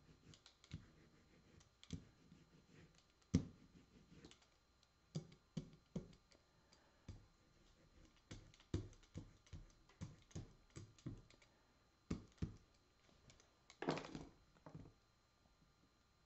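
Faint, irregular taps and clicks of painting tools handled on a tabletop and glass palette: a rubber brayer rolled over wax-coated paper and set down, and a palette scraper picked up. A short rasp comes near the end.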